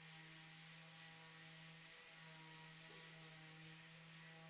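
Near silence: a faint steady electrical hum and hiss in the background.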